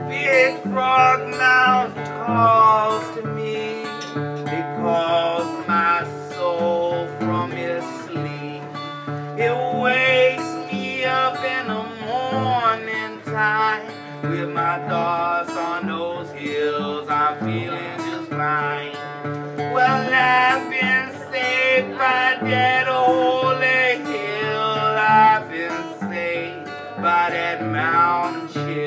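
A man singing a blues song and playing an acoustic guitar.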